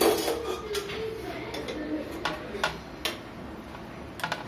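A steel spoon stirring dosa batter in a small stainless-steel pot, knocking and scraping against the pot's side in scattered, irregular light clicks.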